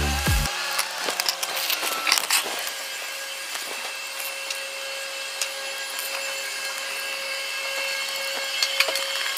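Hand screwdriver working the small screws and nuts of a plastic fairlead ring clamped to a sailboat stanchion, with scattered clicks and scraping of tool on fittings. The ring is coming off because it is cracked.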